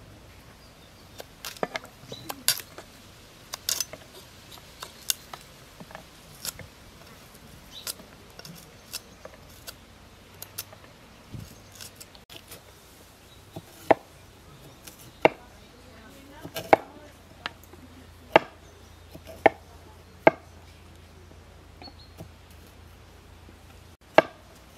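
A large kitchen knife chopping small green fruit on a wooden cutting board: single sharp knife strikes on the board at irregular intervals, roughly one a second, some much louder than others.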